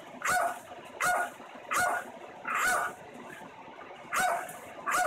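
A dog barking, six sharp barks at an even pace, with a longer pause a little past halfway.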